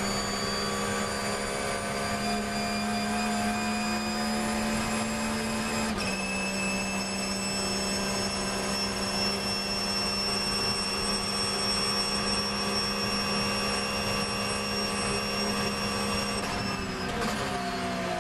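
Porsche 911 GT3 R's 4.0-litre flat-six racing engine heard from inside the cockpit at high speed: a steady high drone with one upshift about six seconds in. Near the end the pitch falls and wavers as the driver lifts off and downshifts for braking.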